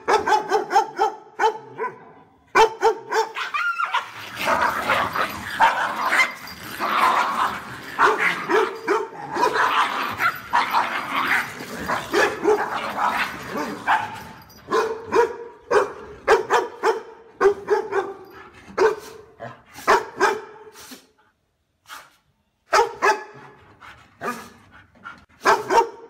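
Dogs barking in quick runs of short, loud barks. A long middle stretch is denser, with overlapping barks and yaps.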